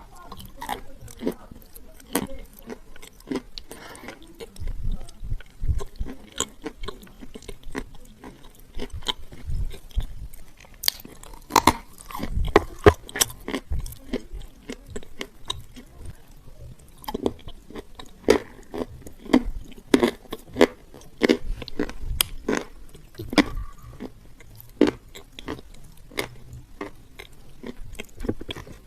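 Close-up chewing and biting of dry edible clay. It gives many sharp, irregular crunches with soft low thuds, busiest in the middle and again in the second half.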